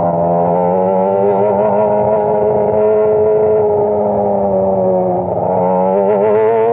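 Sport motorcycle engine running steadily at cruising revs, its pitch wavering slightly and easing off a little about five seconds in.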